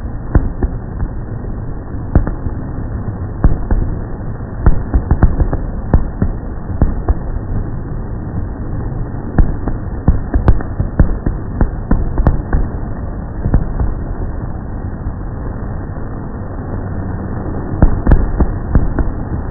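Fireworks bursting overhead: an irregular run of sharp bangs and pops over a steady low rumble. The bangs thin out past the middle, then come thick again near the end.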